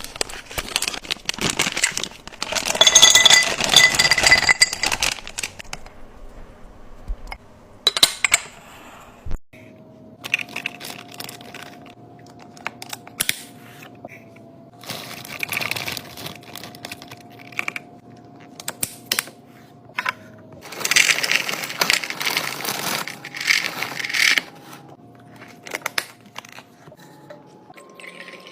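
Food containers and packaging being handled: clicks and clinks of containers and lids, with crinkling, in busy bursts. The loudest bursts come a few seconds in and again about three quarters of the way through.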